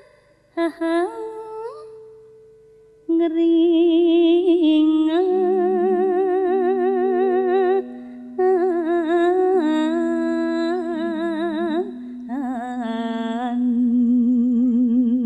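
A Javanese female singer (sinden) singing a jineman in long, drawn-out melismatic phrases with a heavy, fast vibrato, over steady low sustained accompaniment notes.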